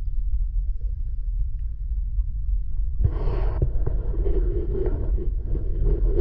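Muffled underwater noise heard through a submerged camera's housing: a steady deep rumble, with a louder hissing wash joining about three seconds in.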